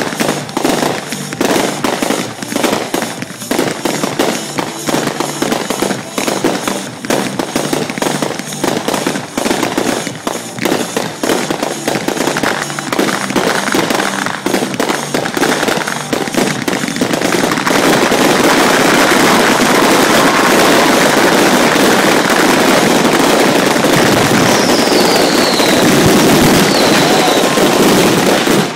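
Fireworks finale: a rapid barrage of bangs, several a second, that merges about two-thirds of the way through into one unbroken wash of crackling. Two brief falling whistles come near the end.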